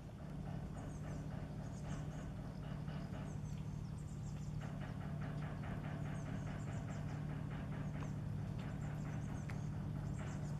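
Inland cargo ship's diesel engine running with a steady low drone. A fast, even ticking joins it about four and a half seconds in. Small birds chirp faintly on top.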